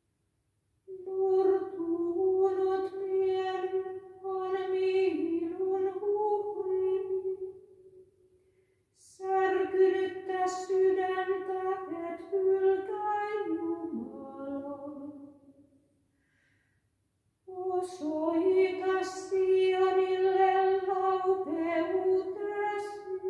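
A woman singing alone without accompaniment, chanting psalm verses in Finnish mostly on one held note that dips at the ends of phrases. There are three phrases with short pauses between them.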